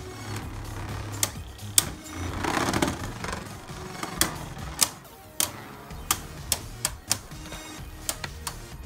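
Two Beyblade Burst spinning tops battling in a plastic stadium: irregular sharp clacks as they collide, with a stretch of grinding scrape about two to three seconds in.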